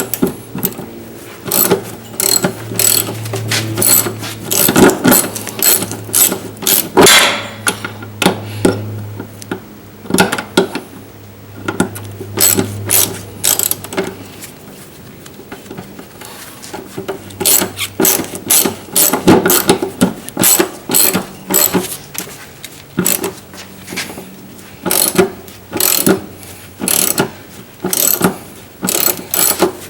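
Hand ratchet wrench clicking in quick runs with short pauses, as bolts are tightened on a driveshaft carrier bearing install, over a low steady hum.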